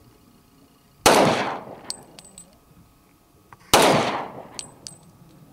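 Two shots from a Glock pistol in .40 calibre, about two and a half seconds apart, each trailing off in a long echo, with a few small clinks after each shot.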